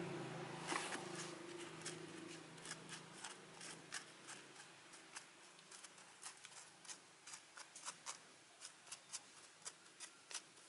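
Light, irregular clicks and taps, two or three a second, from fingers working in a plastic seedling tray, dropping kale seeds into the soil-filled cells and pressing them in. A low hum fades out in the first two or three seconds.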